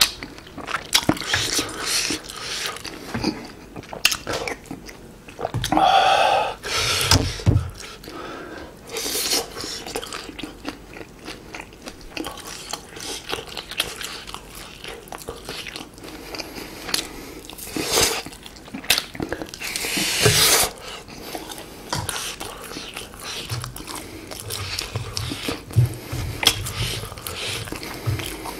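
Close-miked eating sounds: spicy beef-rib soup and noodles taken from a spoon, and grilled chicken-and-green-onion skewer meat bitten and chewed, with many small wet mouth clicks. Two longer, louder slurping bursts come about six seconds and twenty seconds in.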